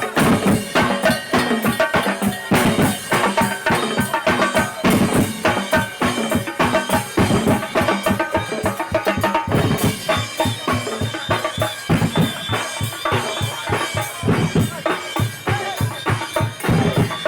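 Marching band playing, led by loud, rapid drumming on bass and snare drums, with instruments carrying a tune above the beat.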